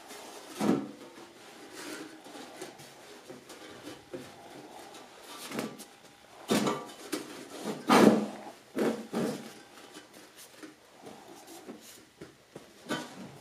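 Handling of a sheet-steel ammo can while ceramic fiber insulation blanket is pressed into it: soft rubbing and scuffing of the fiber against the metal, with several sudden metal knocks and scrapes, the loudest about eight seconds in.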